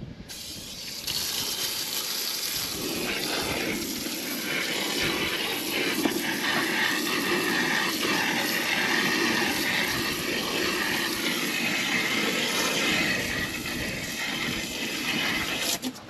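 Garden hose spray nozzle spraying a steady stream of water up into soffit vents and against siding, hissing and splashing as it rinses dissolved grime out of the vents. The spray starts just as the sound begins, builds about a second in, and cuts off suddenly near the end as the trigger is released.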